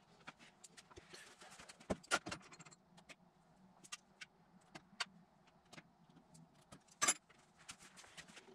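Scattered light clicks, taps and small rattles of objects being handled on a workbench, with a cluster of knocks about two seconds in and one sharper clack about seven seconds in, over a faint steady hum.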